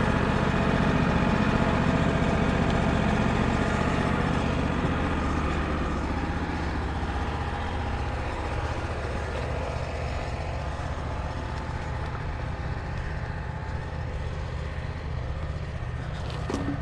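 Engine of a Wood-Mizer LT35 sawmill running steadily, growing slowly quieter.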